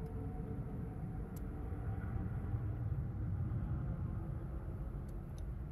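Cessna Citation business jet in flight overhead: a steady low jet rumble with faint engine tones.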